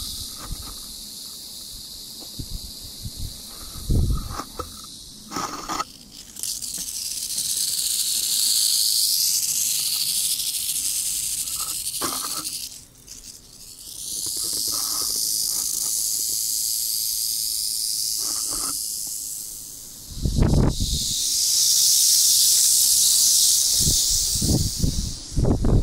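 Prairie rattlesnakes buzzing their tail rattles in a continuous high, hiss-like buzz, the defensive warning of snakes disturbed at close range. The buzz dies away briefly about 5, 13 and 20 seconds in, then picks up again. A few low thumps come with it, the loudest about 20 seconds in.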